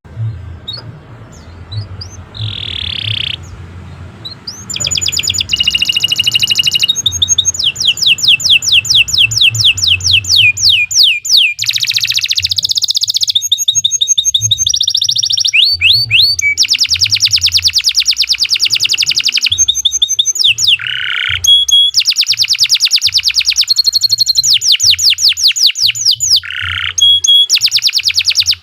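Domestic canary singing a long, loud song of fast trills and rapidly repeated high notes. It starts soft and broken, then runs almost without pause from about five seconds in.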